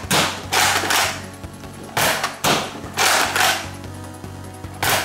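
Nerf Elite Rough-Cut 2x4 pump-action dart blaster being pumped and fired in double-shot mode: sharp plastic clacks and spring-plunger pops come roughly in pairs, about four times, over background music.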